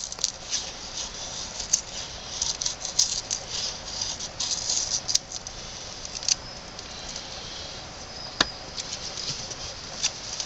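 Light, quick scratching and rustling of fatwood and tinder being handled, dense for the first six seconds or so and then quieter, with one sharp click about eight seconds in.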